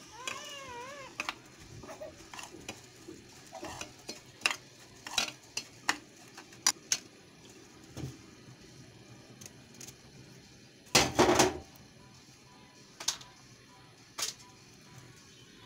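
Metal spoon clinking and scraping against a plate while stirring dry whole spices, in scattered separate clicks, with a louder run of clatter about eleven seconds in. A brief wavering call is heard right at the start.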